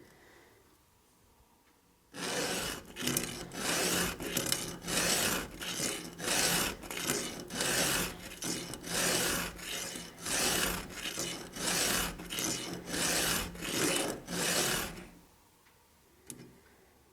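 Hand file rasping across the cutters of a chainsaw chain in steady back-and-forth strokes, about two a second. The filing starts about two seconds in and stops near the end.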